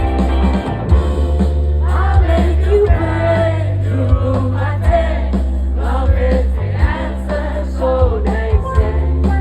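Live band music: guitars over a steady low bass, with singing coming in about two seconds in.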